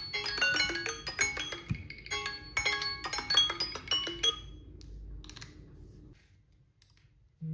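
Samsung Galaxy phone alarm tone: a quick melody of bright, chime-like mallet notes that stops about four seconds in and rings away to near silence. Another tone starts right at the end.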